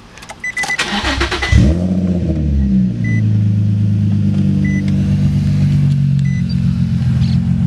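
Infiniti G35's 3.5-litre V6 being started: the starter cranks for about a second, the engine catches with a brief rev flare and settles into a steady idle. A short electronic chime beeps several times, about every second and a half.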